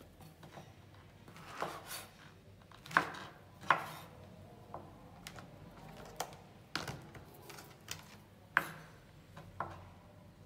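Kitchen knife slicing white beech mushrooms on a bamboo cutting board: irregular sharp knocks of the blade striking the board, a second or more apart, with fainter ticks between.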